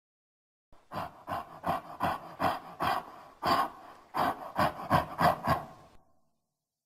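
Gorilla sound effect: about a dozen short, rhythmic huffing grunts, a little over two a second, that start suddenly and stop just as suddenly.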